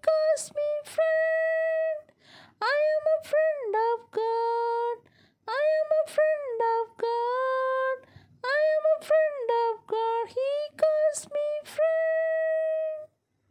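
A high female voice singing a melody alone, with no instruments, in phrases of two to three seconds with short breaks between them. The singing ends shortly before the close.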